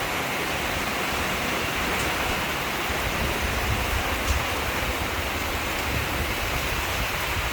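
Heavy rain falling on a tin roof: a steady, dense hiss of drops on the metal.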